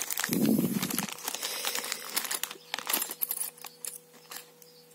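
Small clear zip-lock plastic bag crinkling as it is handled and opened, with a dull bump about half a second in; the crinkling dies down near the end.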